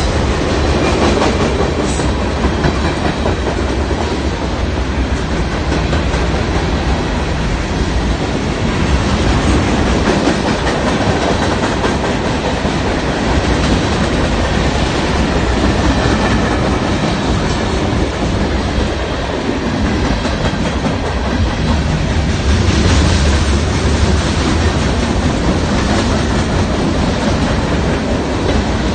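Freight train's cars rolling past close by: a steady rumble and clatter of steel wheels on the rails.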